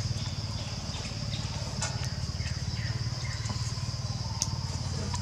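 Motorcycle engine idling steadily, a low, rapidly pulsing rumble, with a steady high-pitched buzz over it and a couple of faint clicks.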